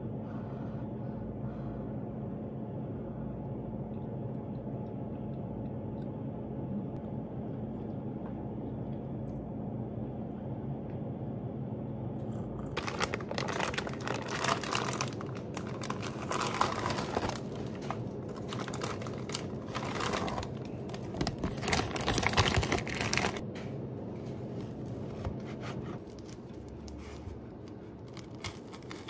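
A steady low hum. From about halfway through, loud, irregular crinkling and rustling of packaging being handled, which eases off shortly before the end.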